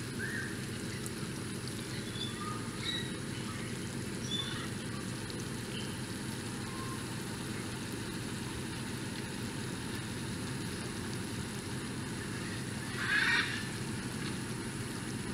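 Outdoor ambience: a steady low hiss with scattered short bird chirps, and one louder waterfowl call, like a duck's, about thirteen seconds in.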